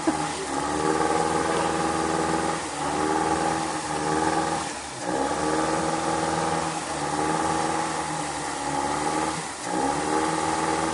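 Engine of an off-road 4x4 stuck in deep water and mud, revving in repeated surges: the pitch dips and climbs again about every two seconds.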